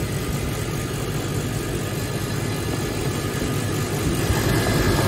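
KAESER 7.5 kW screw air compressor running steadily under load while building pressure. It gets louder about four seconds in.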